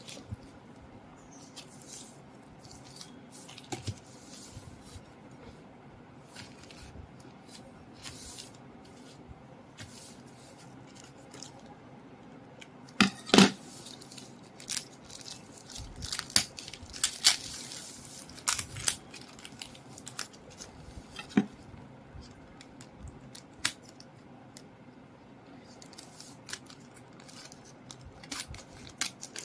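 Plastic courier mailer handled on a hard desk: crinkling and rustling plastic with scattered taps and clicks, the loudest run about halfway through.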